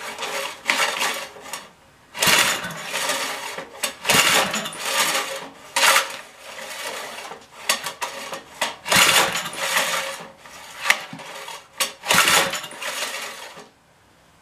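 Recoil pull-starter of a 5 hp Briggs & Stratton engine yanked over and over, about eight pulls, each a brief whir of rope and cranking engine that does not fire. The engine has no spark.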